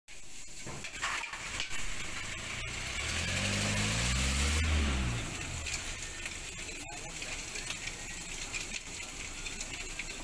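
A steady hiss of chopped kokoreç frying on a flat steel griddle, with a few sharp knocks of metal utensils. About three seconds in, a motor vehicle's engine swells past, rising and then falling in pitch, the loudest sound for about two seconds.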